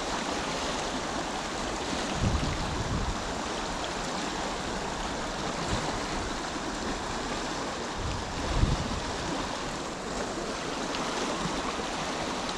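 Steady rush of a chalk stream's flowing water. Two brief low thumps break through it, one about two seconds in and one about eight and a half seconds in.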